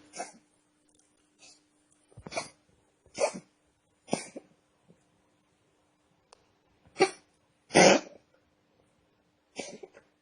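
A domestic cat's coughing fits: about seven short, separate coughs at uneven intervals, the loudest about eight seconds in. The owner can't tell whether it is a cough or a reverse sneeze.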